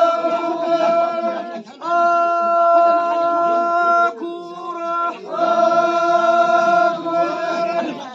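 A group of voices chanting together in long held notes on one steady pitch, each line lasting a few seconds with short breaks between.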